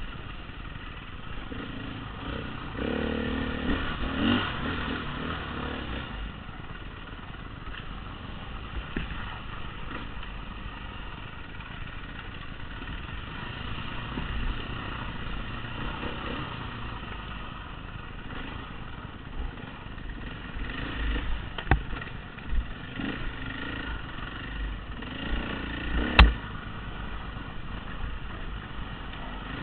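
Dirt bike engine running under changing throttle while riding a rough trail, with clattering over the bumps and a few sharp knocks, the loudest near the end.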